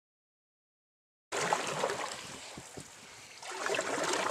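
Silence for about the first second, then a homemade canoe being paddled: the paddle swishing and splashing through lake water, dripping, with a few low knocks, and a louder stroke near the end.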